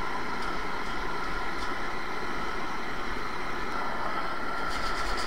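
Hand-held gas torch burning steadily, its flame played over a brass radiator shell to melt the soft solder holding the studs.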